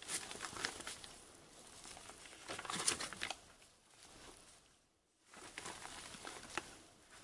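Old paper and books being handled: crinkling and rustling in three bursts, near the start, around three seconds in, and again from about five seconds in.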